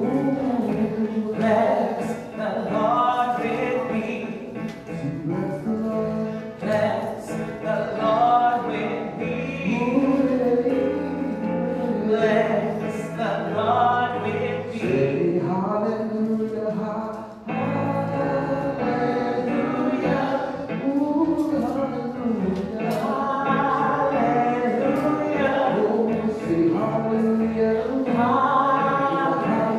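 Gospel music with singing voices, continuous throughout.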